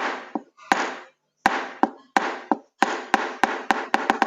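Hammer blows, about a dozen sharp strikes, each ringing out briefly, spaced about half a second apart and coming faster near the end.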